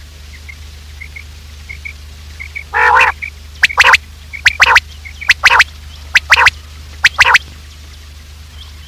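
Recorded common quail calls used as a hunting lure. Faint soft chirps come first, then a short rasping note about three seconds in, then five loud, clipped phrases of sharp notes in quick succession, about one every 0.8 s. A steady low hum runs underneath.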